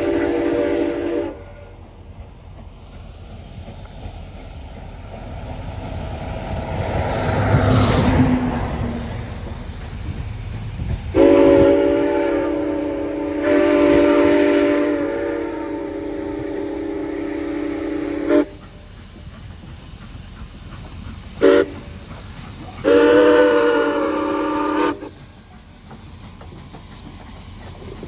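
Canadian Pacific 2816 Hudson steam locomotive's chime whistle: a blast ending about a second in, then, from about eleven seconds, a long drawn-out blast that swells again partway, a short toot and a final long blast, a level-crossing whistle signal. About eight seconds in, a road vehicle passes close by with a pitch that rises and falls, over the train's steady running rumble.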